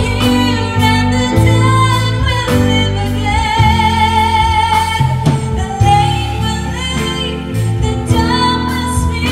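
A woman singing into a microphone with a live band accompanying her, holding long notes with vibrato over steady low chords.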